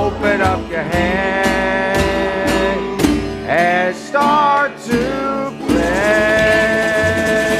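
Country-style song with guitar and a singing voice, ending on a long held sung note about six seconds in.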